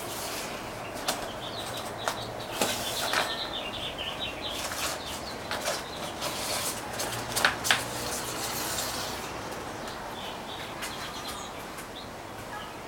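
Translucent plastic rim tape rustling and crinkling as it is unrolled from its roll and wrapped around the edge of a bicycle rim, with several light clicks and taps as it is pressed against the rim. The handling is busiest in the first two thirds and eases off near the end.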